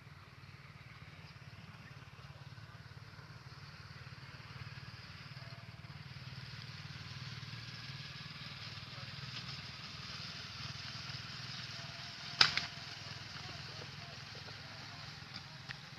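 Faint steady outdoor background, then a single sharp air gun shot about three-quarters of the way through, with a smaller crack just after it.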